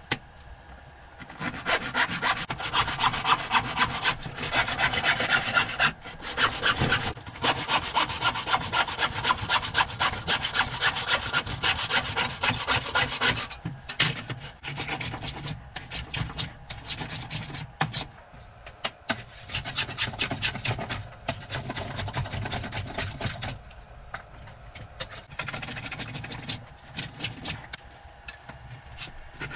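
Hand saw cutting through a wooden board in quick back-and-forth strokes. The strokes are loudest for about the first half, then quieter and broken by short pauses.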